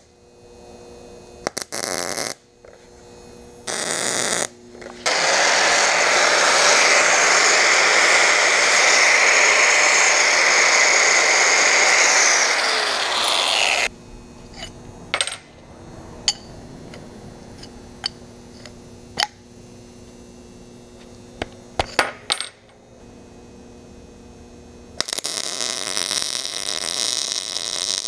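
MIG welder tacking and welding steel: short bursts of arc crackle, then a long loud stretch that drops in pitch just before it stops. Scattered sharp clicks follow, and another weld starts near the end.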